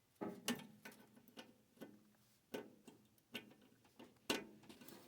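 Sharp, irregular clicks and taps of a screwdriver working at the screws in the back of an old vacuum tube television, roughly two a second. The loudest comes about four seconds in, over a faint steady low hum.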